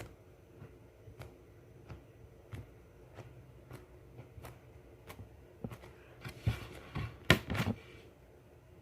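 Scattered light clicks and taps of small objects being handled, with a flurry of louder clicks and rustles about six and a half to seven and a half seconds in.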